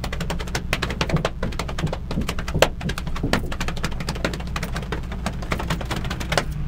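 Hambone body percussion: a man slapping his own body with his hands in a fast run of sharp slaps, several a second.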